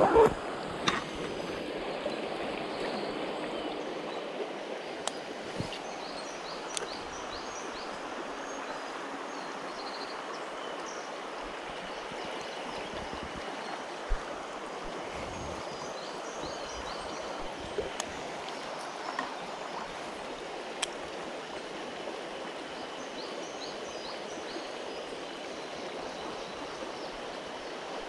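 Mountain stream water rushing steadily, with a few scattered sharp clicks.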